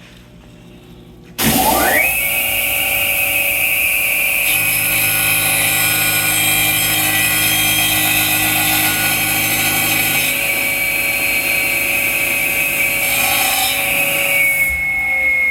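Kalamazoo 14-inch aluminum cutting chop saw switched on, its motor spinning up to a steady high whine, then the blade cutting through a thick piece of aluminum with added grinding hiss and hum for several seconds. Near the end the cutting noise drops away and the whine starts to fall in pitch.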